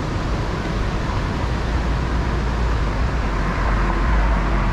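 Steady rushing roar of the Niagara River rapids, with a deep rumble underneath that swells toward the end.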